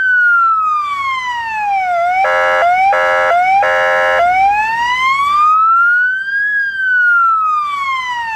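Fire engine siren on a slow wail, its pitch falling, rising and starting to fall again, with three short horn blasts about two to four seconds in.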